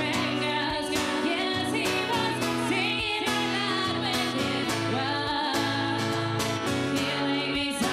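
A song with a woman singing over instrumental backing and a steady beat.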